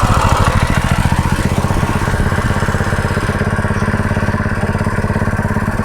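Predator 212cc 6.5 hp single-cylinder four-stroke engine running just after a hot restart on the choke. It is busier for about the first two seconds, then settles into an even, steady beat.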